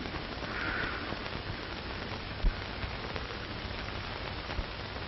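Steady crackling hiss with one low thump about two and a half seconds in.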